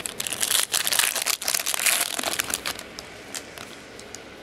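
Trading-card pack wrapper crinkling and crackling as it is torn open and handled for about three seconds, then quieter, with a few light clicks of cards.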